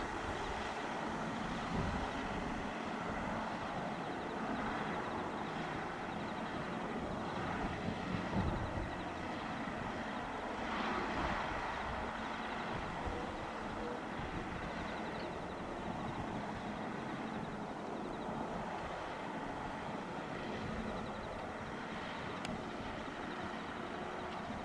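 Distant, steady drone of a Cessna 172R's four-cylinder Lycoming piston engine as the light aircraft descends on landing approach, with wind rumbling on the microphone.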